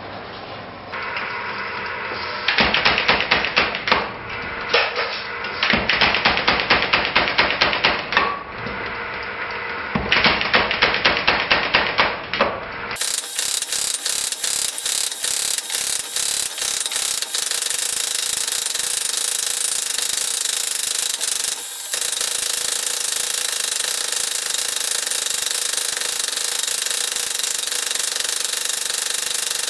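Power hammer striking a glowing steel bar, drawing down its end into a nail header's shank. Quick runs of several blows a second come first, broken by short pauses. From about thirteen seconds in, the blows go on almost without a break.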